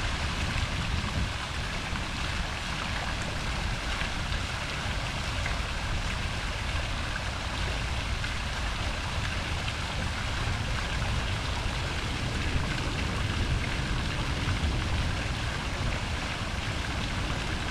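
Tiered fountain splashing steadily into its octagonal basin, a continuous rush of falling water.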